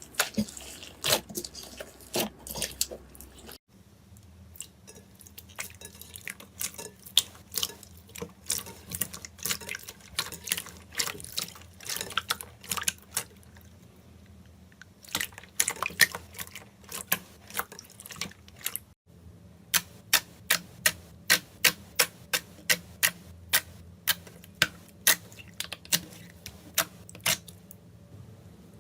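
Slime being squished and poked, giving sticky, wet clicks and pops. Two abrupt breaks come between clips. From about two-thirds of the way in, a regular run of sharper clicks comes about two a second.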